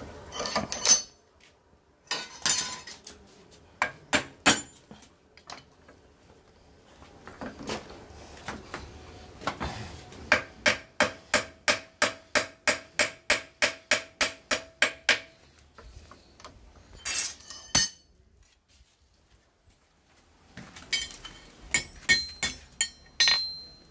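Blacksmith's hand hammer striking hot steel on a vise and anvil: a few scattered blows, then a steady run of about twenty quick blows at roughly four a second with a ringing metal note under them. Then two heavier blows, a short pause, and lighter clinks of steel near the end.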